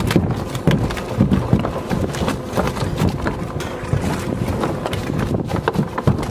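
Wind buffeting the microphone over a steady rush of water, with irregular knocks and clatters throughout.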